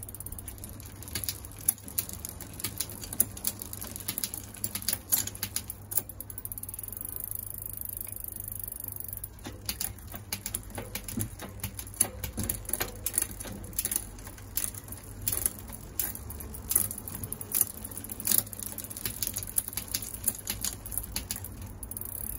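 Bicycle drivetrain turning: the chain runs over the spinning rear cassette and through a Shimano Deore LX rear derailleur, with irregular sharp clicks and chain clatter, fewer for a few seconds in the middle.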